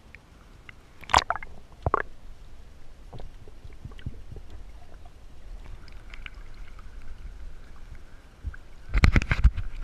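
Water heard through a submerged underwater camera: a low, steady rumble, with two sharp knocks about one and two seconds in. Near the end, a loud burst of splashing and sloshing as the camera comes up through the surface.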